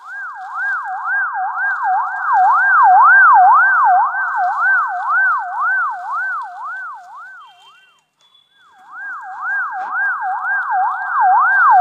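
Ambulance siren sound effect wailing up and down, about two sweeps a second. It fades out about eight seconds in and starts again half a second later.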